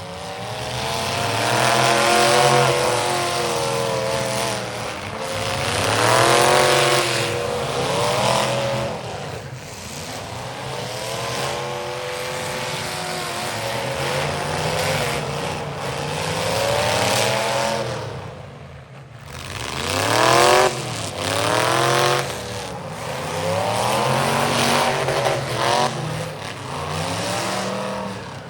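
Demolition derby car engines revving hard, over and over, the pitch climbing and dropping every second or two as the cars accelerate and back off in the arena, with several engines sounding at once.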